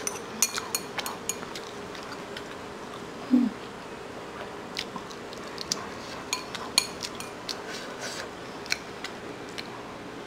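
Chopsticks clicking and tapping against a noodle bowl at irregular intervals while someone eats noodles, with a brief hummed vocal sound about a third of the way in.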